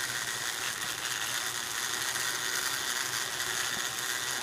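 Sky bicycle rolling along its steel cable as it is pedaled: a steady mechanical whirring and rattling from its wheels and drive.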